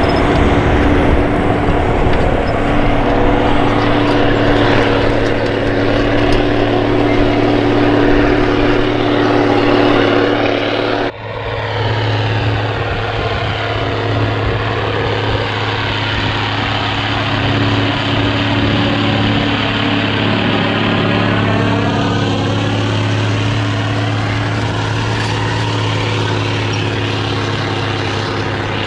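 Steiger Cougar ST280 tractor's six-cylinder diesel engine running steadily under load while pulling a mulch finisher through the soil. About eleven seconds in, the sound cuts abruptly to a nearer recording in which the pitch sweeps up and down as the tractor and implement pass close by.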